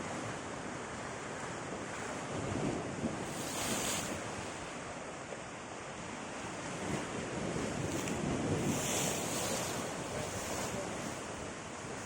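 Ocean waves breaking and washing on a beach, the surf rising and falling in swells, the louder ones about four and nine seconds in, with wind buffeting the microphone.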